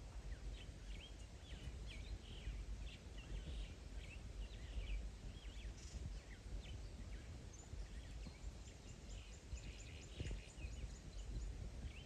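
Several birds chirping and calling throughout, with a quick run of high repeated notes from about eight and a half to eleven seconds in, over a steady low rumble.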